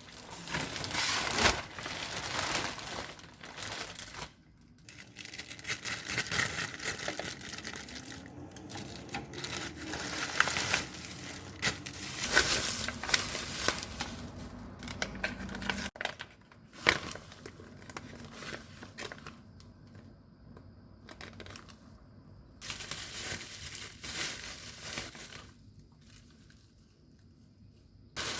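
Irregular crinkling and rustling of packaging being handled, with some tearing sounds, coming and going in bursts.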